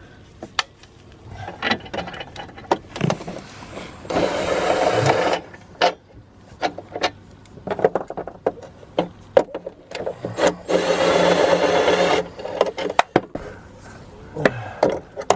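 Hand tools working on a car's exhaust underneath the car: scattered metal clicks and knocks, with two longer rasping runs of about a second and a half each, about four seconds and ten and a half seconds in.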